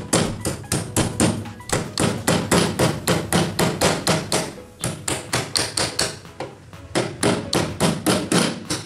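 Rapid repeated knocking, about four blows a second with a few short pauses, as the motor is fitted onto the wooden sewing machine table.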